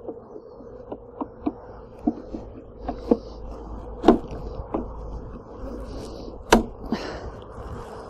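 Honeybees humming steadily around an opened hive, with irregular sharp clicks and knocks of wooden frames being pushed together in a polystyrene hive box; the two loudest knocks come near the middle and about three-quarters of the way through.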